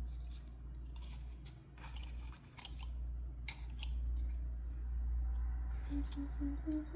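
Scattered light clicks and snips of small metal pinning tools handled while setting a pinned beetle's legs, over a steady low hum. A few short hummed notes come near the end.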